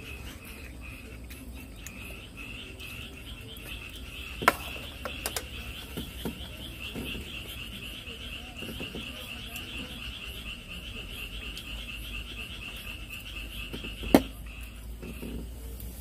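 A small animal's high trilling call: a fast, even pulsing that swells in about two seconds in, holds for about twelve seconds, and stops abruptly. Two sharp knocks stand out, one a few seconds into the call and a louder one just as it stops.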